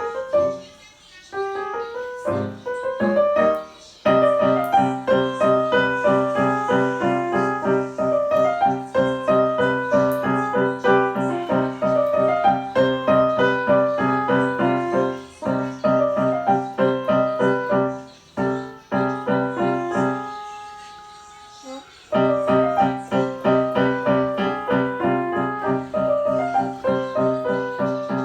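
A piano-type keyboard being played: a melody over a steady repeating accompaniment. The first few seconds are halting; about twenty seconds in, the playing breaks off while a held note dies away, then starts again.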